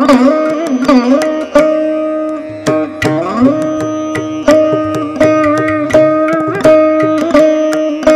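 Saraswati veena playing Carnatic music in raga Paras: plucked notes with sharp attacks, long held notes and smooth sliding bends (gamakas) between pitches.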